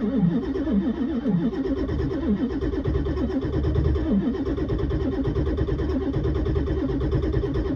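Starter cranking a 1997 Ford F-250's 7.3 Powerstroke V8 turbo-diesel, with a steady run of rhythmic compression pulses, several a second, and no firing. The cranking is dragged down by the −17 °F cold, thick cold 15W-40 oil and batteries weakened by the cold.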